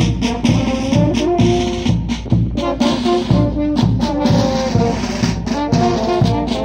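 A brass band playing a dance tune: brass horns carry the melody over a steady beat of bass drum and snare drum.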